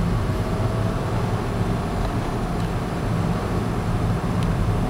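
Steady engine and road rumble of a moving car, heard inside the cabin.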